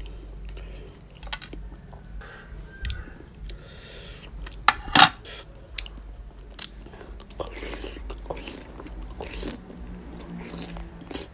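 Close-miked eating of a big oyster in chili sauce: wet chewing and smacking of the mouth with many short sharp clicks, the loudest about five seconds in.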